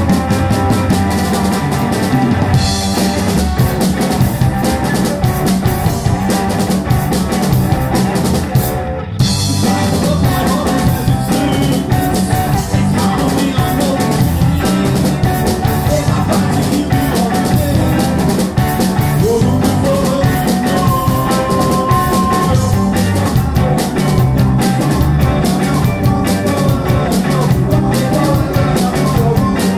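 Live rock band playing, led by an electric guitar with a drum kit, with a brief break about nine seconds in before the band comes back in.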